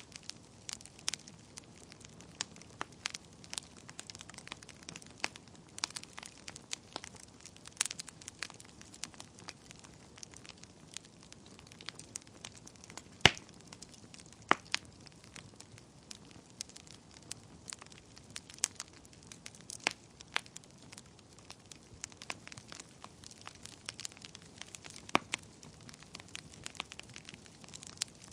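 Wood fire burning in a fireplace: irregular crackles and pops over a soft hiss, with one loud pop about 13 seconds in.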